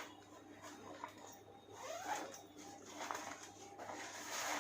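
A zipper being pulled on the ring light's carry bag, with fabric and handling rustle in irregular strokes.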